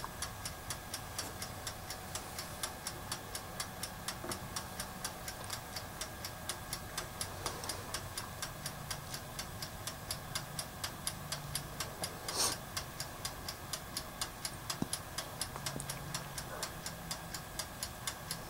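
Wind-up mechanical timer of a toaster oven ticking evenly, several ticks a second, while the oven heats a board to reflow its solder paste. One louder click comes about twelve seconds in.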